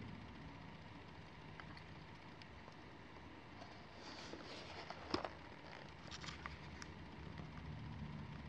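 Faint handling of a cardboard-and-plastic blister pack: a spell of small crinkles and clicks a few seconds in, the sharpest just past the middle, over a low steady hum.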